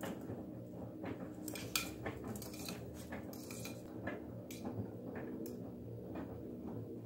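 Irregular light clicks and taps of claws on a hard floor as a Yorkshire terrier and a budgerigar scurry about. A steady low hum runs underneath.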